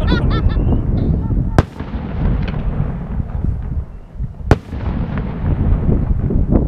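Fireworks going off: a dense low rumble of booms, with two sharp bangs about a second and a half in and again about four and a half seconds in, and smaller cracks near the end.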